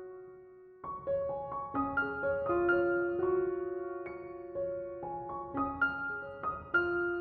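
Background music: a gentle piano melody of single notes, each struck and left to fade, with a brief pause about a second in.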